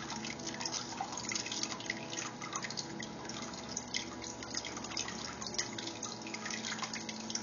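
Bubble wrap and plastic straws crinkling and crackling as they are handled, a steady stream of small, irregular crackles.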